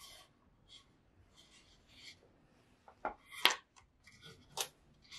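Picture cards being handled as one is set down and the next picked up: soft paper rustles, then a few short sharp taps and scrapes about three to four and a half seconds in.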